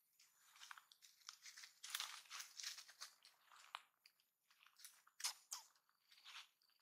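Faint, irregular crackling and rustling of dry leaf litter and twigs as macaques move across the forest floor, densest about two seconds in, with a sharper snap near five seconds.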